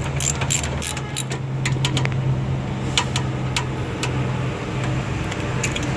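Irregular light clicks and taps, as of hand tools and parts being handled during repair work, over a steady low hum.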